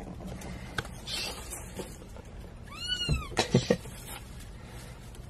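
A newborn kitten mewing once, a single high cry that rises and falls about three seconds in, with a few soft clicks around it.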